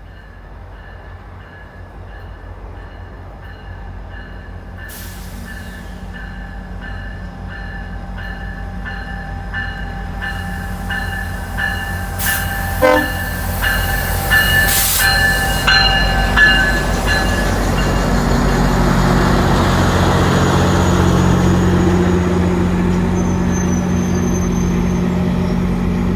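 GO Transit diesel commuter train drawing nearer, its locomotive bell ringing steadily and the rumble of its engine and wheels growing louder. Around the middle the horn sounds briefly, and the bell fades out as the train's rumble takes over.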